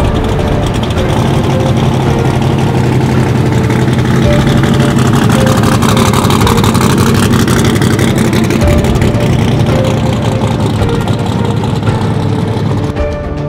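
Twin-turbocharged engine of a 1963 Chevy Nova drag car running at a loud, steady low idle as the car rolls slowly past, loudest about six seconds in, then dropping away near the end as it pulls off.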